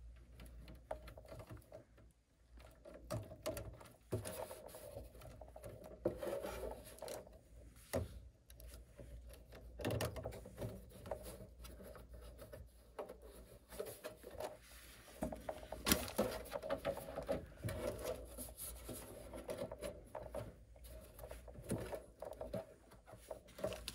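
Hand screwdriver work on a furnace's sheet-metal control-board bracket: scattered small clicks, scrapes and rubbing as a screw is turned and the board is worked loose from its keyhole mounts, with a few sharper metal knocks.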